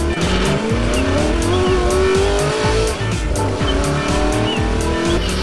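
Amusement arcade noise: electronic game music with a steady beat, and a recorded car-engine sound effect that revs up in a long rising sweep, drops about three seconds in and rises again.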